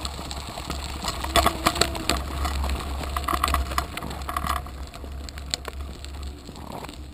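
Small child's bicycle being pushed along, rattling and clicking as it rolls, with a steady low rumble underneath, heard from a camera fixed to its handlebar. A cluster of sharp knocks comes between about one and two seconds in.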